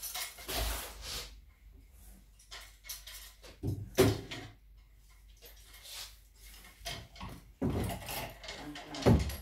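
Plastic clothes hangers and a wardrobe door being handled: a string of separate knocks and clatters, the sharpest about four seconds in and another near the end.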